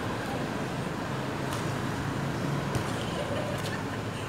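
Steady low hum of distant road traffic, with a couple of faint ticks.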